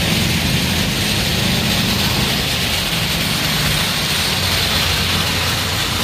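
Steady traffic noise of motorcycle engines running close by, a low even hum under a constant hiss.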